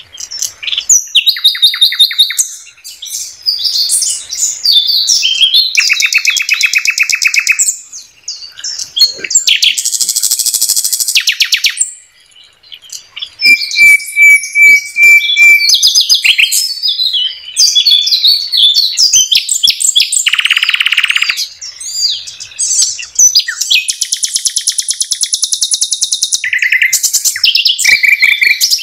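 Common nightingale singing a varied song of separate phrases with short pauses between them. The phrases include fast rattling trills, a long steady whistled note about halfway through, and buzzy, chattering notes.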